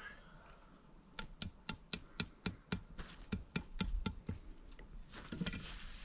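A quick run of about a dozen sharp knocks, roughly four a second, lasting about three seconds, then a soft rustle near the end.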